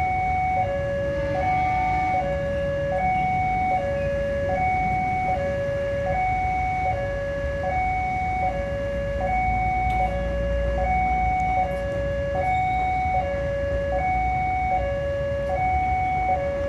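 Railway level-crossing warning alarm sounding a steady high-low two-tone chime, switching pitch about every 0.8 s, the signal that a train is approaching the crossing. A low rumble runs underneath.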